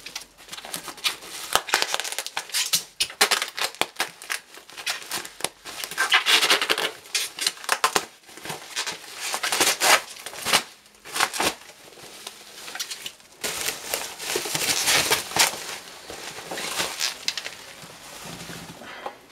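Model box packaging being handled: irregular rustling and crinkling with many sharp clicks and taps.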